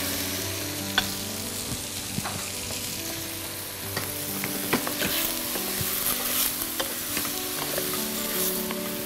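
Chicken pieces and mushrooms frying with a steady sizzle while wooden spoons stir in stainless steel pots, with a few light knocks of the spoon against the metal.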